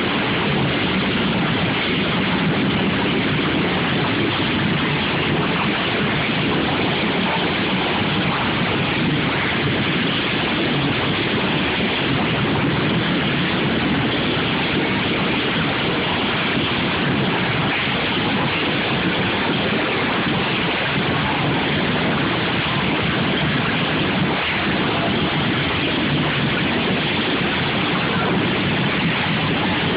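Many racing lawn mower engines running together in a heat, blending into one loud, steady wash of engine noise with no pauses.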